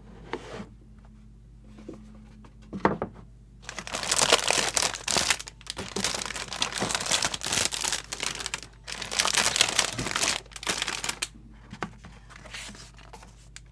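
Plastic packaging crinkling, with some tearing, in a run of handling bursts lasting several seconds, as a plastic model kit's bagged parts are unwrapped.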